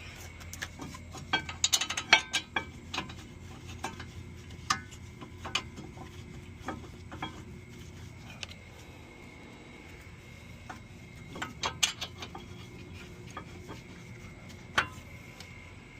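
Metal clinking and clicking of hand tools and bolts while a rear brake caliper bracket is refitted, with irregular sharp clicks bunched together about two seconds in and again near the end.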